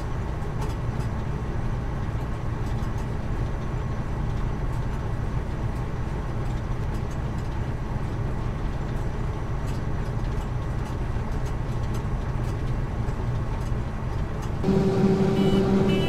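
Combine harvester running steadily, a low engine drone. Near the end it turns louder, with a clear steady hum.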